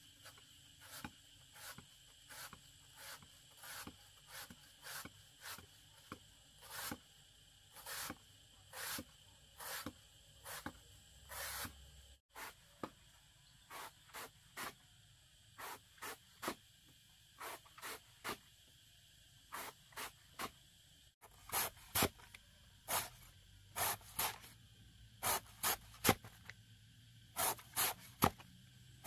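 Repeated short rustling, scraping strokes, about one or two a second, over a faint steady insect hum.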